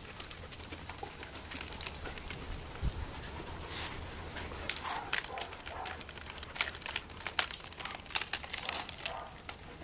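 Dry crinkling and rustling with many small sharp clicks, from a Swiffer duster being rubbed over dogs' fur to strip off sticky burs. A brief low thump comes about three seconds in.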